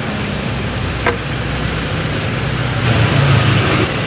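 Street traffic rumble: a steady engine drone with one sharp click about a second in, and a louder stretch near the end as a vehicle passes close by.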